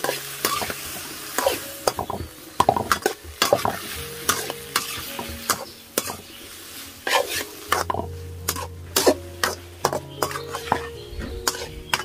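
Metal spatula stir-frying sliced bitter melon and meat in a hot steel wok, the food sizzling. Irregular sharp clinks and scrapes of the spatula against the wok run throughout.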